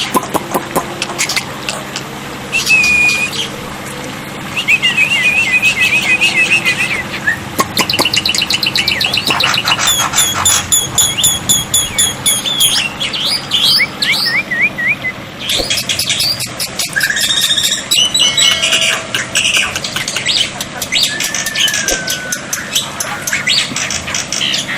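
Black-winged starling singing: a long, varied run of chirps, fast rattling clicks, squawks and whistled notes, changing phrase every second or two with short gaps.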